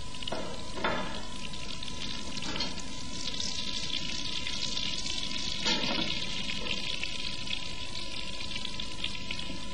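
Beef steak frying in hot butter in an earthenware frying pan: a steady sizzle, with a couple of brief louder spatters, one about a second in and one near the middle, as the first side sears.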